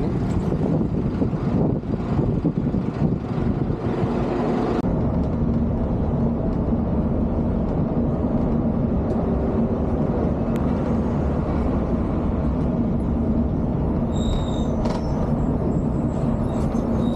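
Rough traffic noise beside buses with their engines running, then an abrupt change about five seconds in to the steady drone of a Volvo B11R coach's diesel engine as the bus drives, heard from beside the driver. The drone carries a low steady hum.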